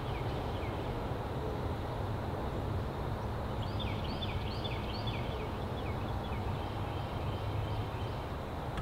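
Outdoor street ambience: a steady low background rumble, with a bird calling a quick run of short, falling chirps around four to five seconds in.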